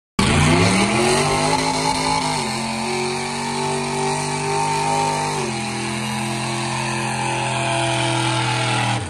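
Mud truck's engine at full throttle: it revs up over the first second or two, then holds high and loud, its pitch stepping down twice, about two and a half and five and a half seconds in.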